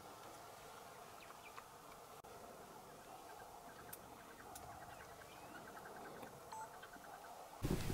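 Faint, scattered chirps and short calls of wild birds over a quiet open-air background at a waterhole. A sudden, much louder noise cuts in near the end.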